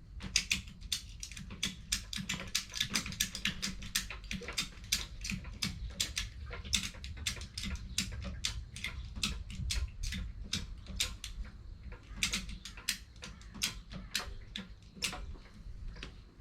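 Ratchet strap being tightened: the ratchet's pawl clicking sharply over and over, roughly three clicks a second, with short pauses between runs of strokes.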